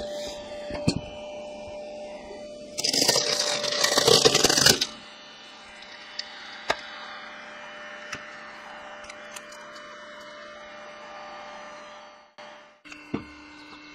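Log being forced through the wedge of a homemade firewood splitter: a loud burst of wood cracking and splintering about three seconds in, lasting about two seconds, then a lower steady machine noise with a few sharp clicks. The sound drops out briefly near the end.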